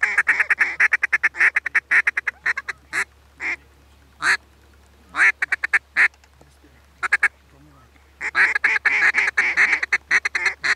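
Mallard quacking and rapid feeding chuckles blown on duck calls to draw circling mallards in: fast runs of short notes at the start and again near the end, with scattered single quacks between.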